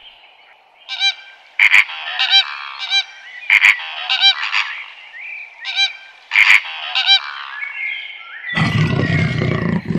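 Repeated loud bird calls, short honks in quick runs of two or three. Near the end a deep animal roar starts.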